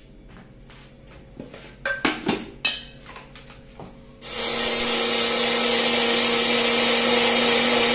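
Small electric blender grinding dry barnyard millet (sama rice) to a coarse flour: a few clicks and knocks as the jar is handled, then about four seconds in the motor starts and runs steadily with a gritty rushing grind, cutting off suddenly.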